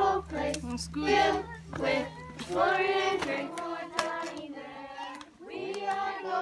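A group of children singing together, with notes held and sliding between phrases.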